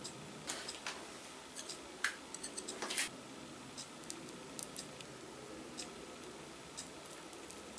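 Light clicks, taps and scrapes of a tiny fork and a miniature plate being handled while a small cake slice is cut. The taps cluster about two to three seconds in, with the sharpest tick near three seconds, over a steady faint hiss.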